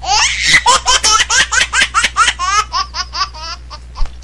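High-pitched laughter, like a baby's: a rapid run of short rising-and-falling 'ha' sounds that grows weaker and stops about three and a half seconds in, over a steady low hum.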